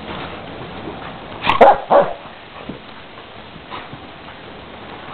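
A dog giving short play barks while wrestling with another dog: two loud barks close together about a second and a half in, and a fainter one near the end.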